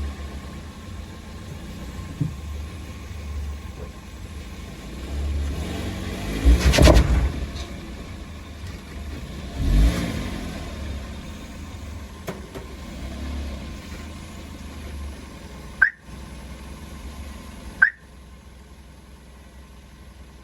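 Car engine and vehicle sounds: a steady low rumble that swells loudly twice, about seven and ten seconds in, with the pitch bending as it rises and falls. Two short, sharp high chirps come near the end.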